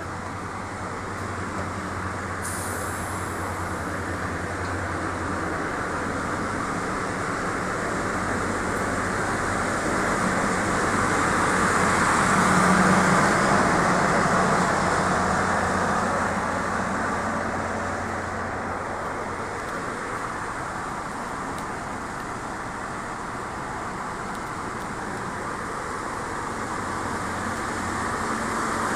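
DR1A diesel multiple unit's diesel engine running at idle in a steady drone with a low hum. It grows louder around the middle, near the power car, and then fades again.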